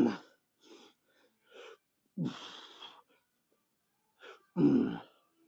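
A man breathing hard while straining through a set of biceps reps: three loud, partly grunted exhalations about two seconds apart, with quicker, fainter breaths between them.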